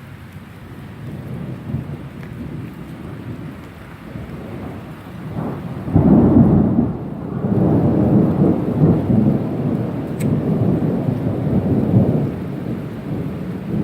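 Thunder over steady monsoon rain: a sudden loud clap about six seconds in, rolling on in low rumbles that swell and fade.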